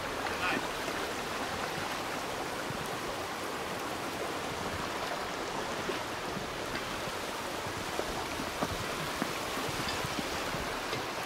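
Rocky mountain stream running over boulders and small cascades, a steady rush of water.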